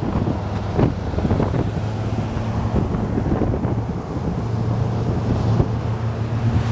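Wind buffeting the microphone at highway speed over the steady drone of a vehicle engine and road noise, the engine hum a little stronger in the second half.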